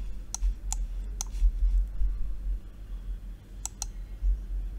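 Computer mouse clicks, a few sharp single clicks scattered apart, two of them close together near the end, over a steady low hum.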